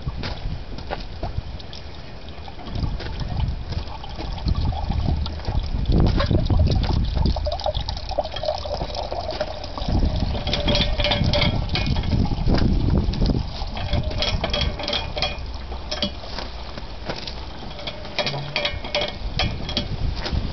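Apple juice running and trickling out of the cloth-wrapped pomace layers of a rack-and-cloth cider press under pressure, with a low rumble underneath. The trickling grows busier and more crackly about halfway through.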